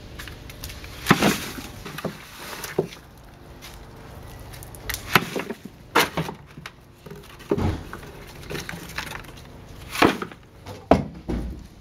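A metal shovel scraping and knocking against the bottom of a plastic wheelbarrow tub as wet compost material is scooped up and dropped into a plastic bin. It is a run of sudden scrapes and thuds, a second or two apart.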